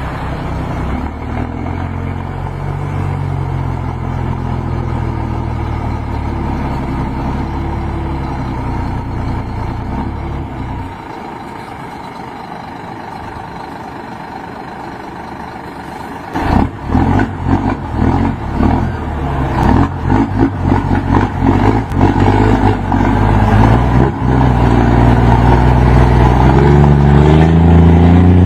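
Scania truck's diesel engine with a straight-through exhaust pulling away and running up through the gears. The exhaust note rises and drops with each shift. It goes quieter for several seconds around the middle, then comes back loud and choppy about 16 seconds in, climbing in pitch again near the end.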